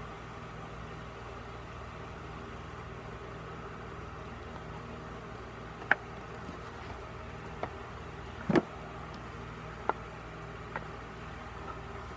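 Steady background hum with a handful of sharp taps and clicks from fingers on a tablet and its folding case; the loudest is a quick double knock about eight and a half seconds in.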